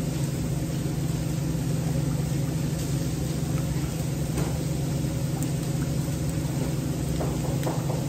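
A steady low mechanical hum, as of a motor running, with a few faint clicks.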